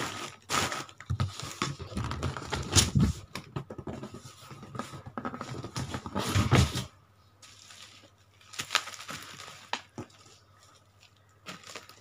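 Cardboard shipping box and plastic and bubble-wrap packaging being handled: irregular rustling, crinkling and scraping for about seven seconds, then quieter, with a few scattered crackles.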